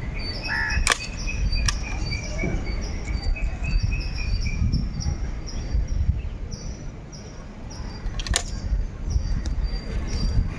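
A few sharp clicks from handling an air rifle, twice close together about a second in and once more near the end, over wind rumble on the microphone and a steady, evenly repeating high chirping in the background.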